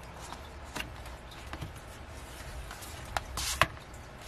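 Hands handling album contents and photocards: scattered light clicks and taps of card and paper, with a short rustle ending in a sharp click about three and a half seconds in.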